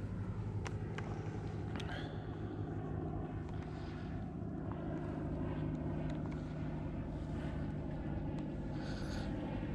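Steady low motor hum, with a few faint sharp clicks in the first two seconds.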